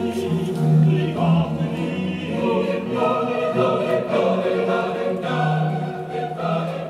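Choral music: several voices singing long, held notes, starting fading out near the end.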